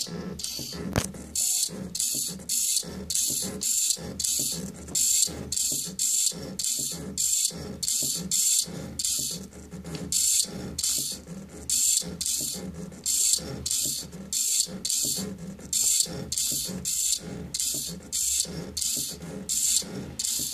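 Polargraph drawing machine at work: its stepper motors wind the bead chains and move the pen gondola in short strokes, about two bursts a second, with a rasping, ratchet-like sound.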